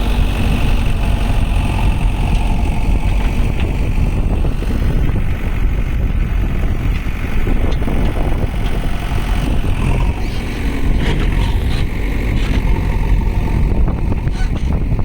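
JCB backhoe loader's diesel engine running steadily under work, a continuous low rumble, with a few short knocks in the second half.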